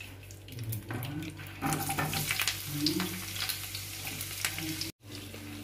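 Sliced onions sizzling and crackling in hot oil and ghee in a kadai. The sizzle starts about a second in, as the onions go into the pan, and grows louder, with a brief break near the end.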